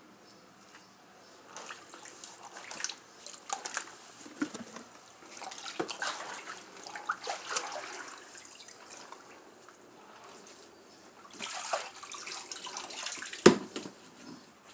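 Floodwater sloshing and splashing in irregular bursts, with a single sharp knock about a second before the end.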